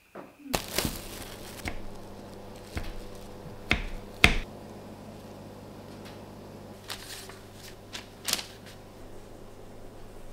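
Hands cutting and handling a log of cookie dough on cling wrap: a series of sharp knocks and clicks, the loudest about four seconds in, over a steady low hum.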